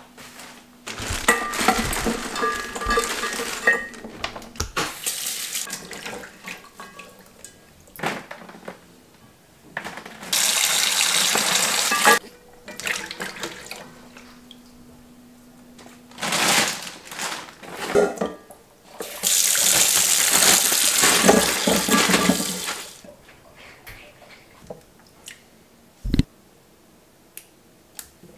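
A kitchen tap runs into a steel bowl in three bursts of a few seconds each while green chilies and green tomatoes are rinsed. Between the bursts come small splashes and the clicks and knocks of handling.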